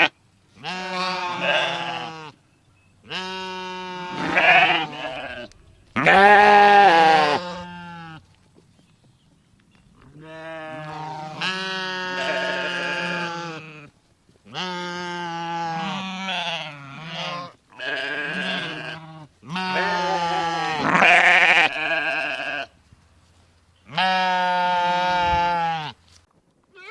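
Livestock bleating: a series of about eight long, wavering calls, each one to three seconds long, with short pauses between them.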